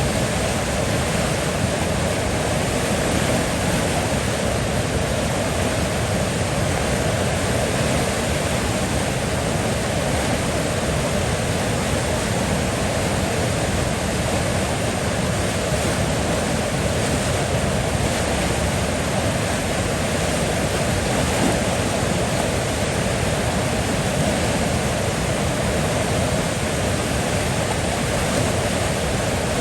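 River water flowing, a steady unbroken rushing with no distinct splashes or changes.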